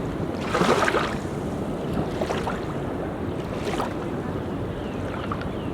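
Ocean surf washing steadily onto a beach, with a few louder breaking splashes, the strongest about a second in.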